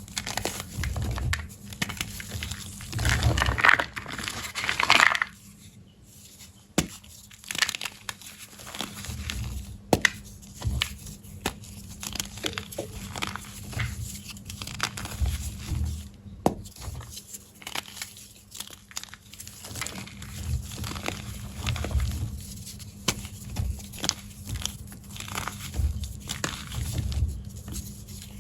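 Soft, crunchy blocks of gym chalk being crushed, crumbling and crunching in irregular bursts of crackles, loudest a few seconds in.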